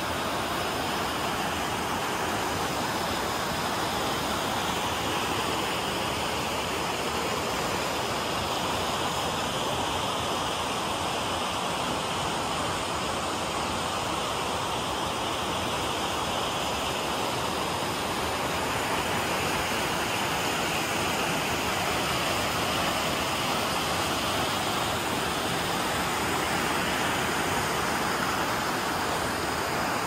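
Waterfall, a steady rush of falling water with no break.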